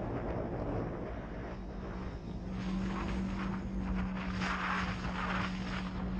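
Polaris RZR 900 side-by-side's twin-cylinder engine running at a steady cruise, its drone holding one pitch from about two seconds in, with wind rushing over the microphone and gusting louder a little past the middle.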